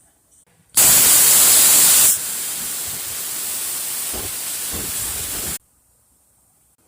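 Metal-cutting torch hissing as it cuts around a steel kingpin plate; the hiss comes on sharply about a second in, drops to a lower steady level a second or so later, then cuts off suddenly near the end.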